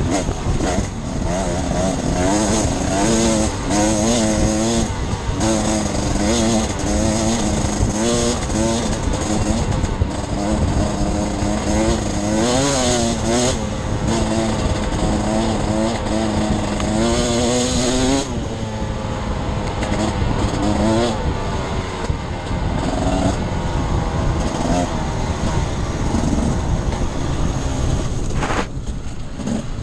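Enduro motorcycle engine revving up and down again and again as it is ridden off-road, with wind rumbling on the microphone. About two-thirds of the way in the engine drops to a softer, lower-revving run.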